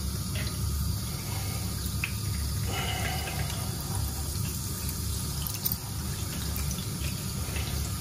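Kitchen tap running a thin steady stream into a stainless steel sink, splashing onto the fish lying in it, with a few faint clicks.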